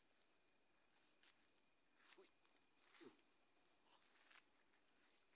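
Faint, steady, high-pitched chorus of night insects, with a few brief soft rustles of grass as someone moves through it, the strongest about three seconds in.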